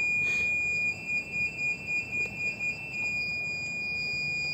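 A steady, high-pitched electronic tone from the Hikvision video intercom equipment, pulsing quickly for a couple of seconds in the middle before going steady again.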